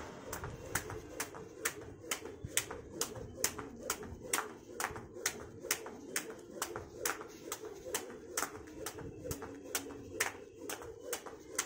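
Jump rope skipping: the rope slaps the concrete floor on every turn in a steady, even rhythm of about two and a half sharp slaps a second.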